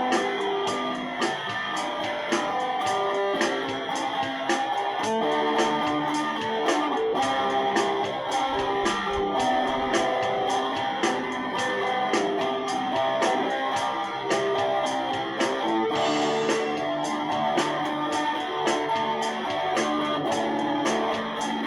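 Guitar playing a melodic line of picked notes over a steady ticking beat.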